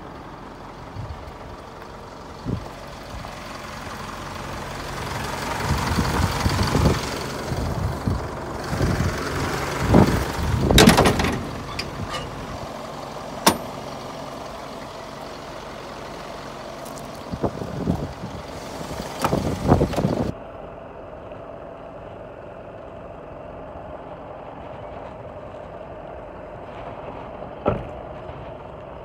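A vehicle engine running steadily, with scattered sharp knocks and louder stretches of rustling and handling noise about six, eleven and twenty seconds in.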